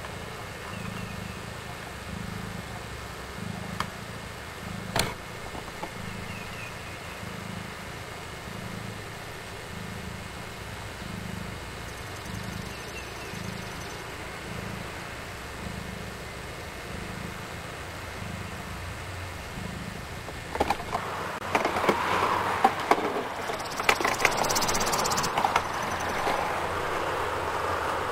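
Nursing mother cat purring, a low rumble that swells and fades about once a second with her breathing. About twenty seconds in, louder rustling and scraping with sharp clicks comes in over it.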